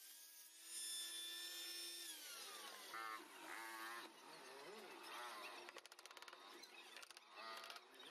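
Table saw motor running at steady speed, then switched off about two seconds in and winding down, its hum falling in pitch as the blade coasts to a stop. A run of rapid light clicks comes near the end.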